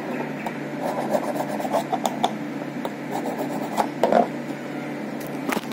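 A small hand file rasping on a key blank in uneven repeated strokes, cutting a new car key by hand.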